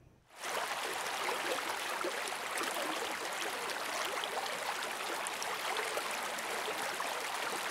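A creek rushing over rocks in small whitewater rapids: a steady, even rush of water that starts a fraction of a second in.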